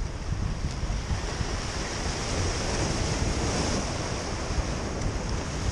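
Ocean surf washing and breaking against jetty rocks, a wave surging louder about halfway through, with wind buffeting the microphone.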